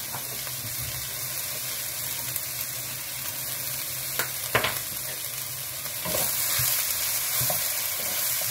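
Vegetables sizzling in a frying pan, with two sharp knocks about halfway through. The sizzle gets louder in the last couple of seconds as a wooden spatula stirs the vegetables.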